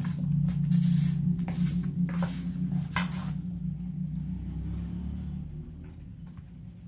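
A small motor on a homemade drawing machine hums steadily, with a few short scrapes and knocks as the machine moves over the paper and board. The hum weakens about two-thirds of the way through.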